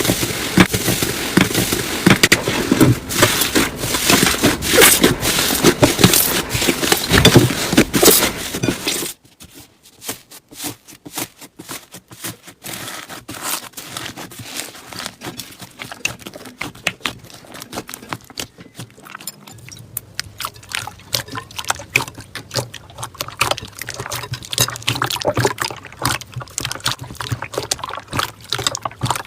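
Slime being squished and worked by hand, making dense sticky crackling and popping clicks. The crackling is loud and busy for the first nine seconds or so, then drops suddenly to quieter, sparser pops.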